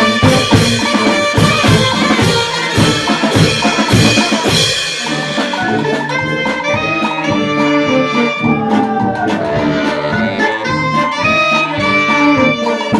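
Brass band playing a pasodoble: trumpets and saxophones over drums and cymbals. About five seconds in, the percussion thins and the brass hold long notes; the full band returns near the end.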